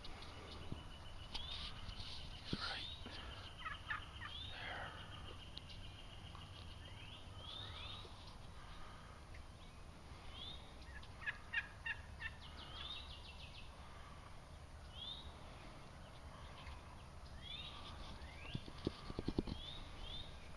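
Wild turkey gobbling twice, each a rapid rattling call, about four seconds in and again around eleven seconds in. Songbirds chirp throughout, with short rising high notes.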